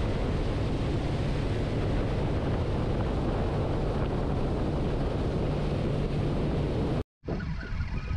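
Small boat running at speed: a steady rush of wind on the microphone and water along the hull over the outboard motor's running. It cuts off abruptly about seven seconds in, and a quieter, uneven sound follows.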